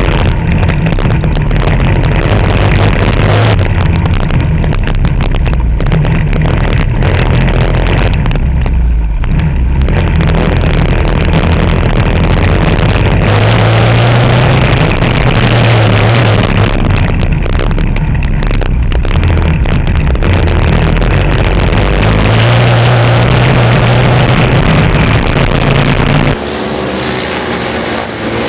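Yamaha YF220 dirt kart engine running hard on board, loud and close with wind noise over it, its pitch rising and falling as it revs up the straights and backs off for corners. Near the end the sound cuts to a quieter kart engine heard from trackside, rising in pitch as it accelerates.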